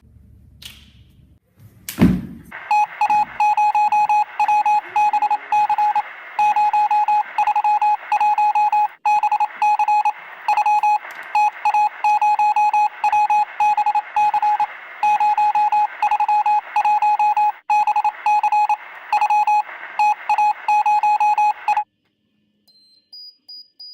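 Morse code keyed by hand on a Morse key, heard as a steady mid-pitched buzzer-like tone switched on and off in dots and dashes for about twenty seconds, cutting off suddenly near the end. A thump comes about two seconds in, just before the keying starts.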